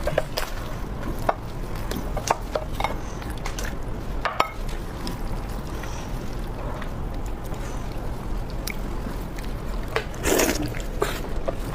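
Close-miked wet chewing and mouth sounds of someone eating pork knuckle: soft smacks and small clicks over a steady hiss, with a louder burst of mouth noise near the end.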